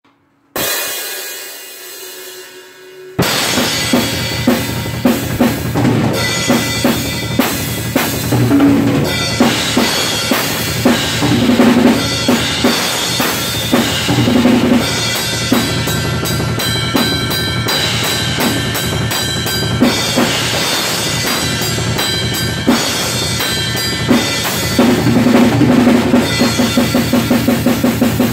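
Acoustic drum kit played hard: kick, snare and tom hits under crash cymbals in a driving groove, with a run of fast, even strokes near the end. It opens with a few seconds of one ringing, fading sound before the full kit comes in.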